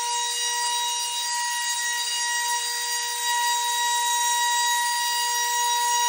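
Sharper Image Gravity Rover wall-and-ceiling crawler's suction fan running: a steady high-pitched whine over a hiss of rushing air, the fan holding the toy against the ceiling.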